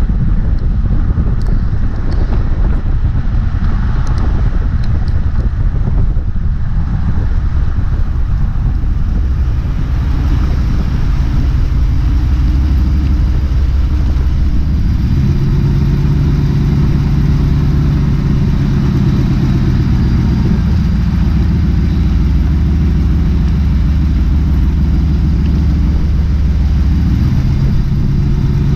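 A 2002 Dodge Ram Van 1500 driving, with a steady low rumble of road and engine. A low steady drone joins about halfway through, breaks off briefly, and comes back near the end.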